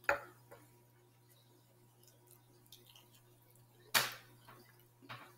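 Eating sounds: two sharp clicks about four seconds apart, with a few faint ticks between, as a chicken drumstick is eaten with a spoon over a glass bowl of rice.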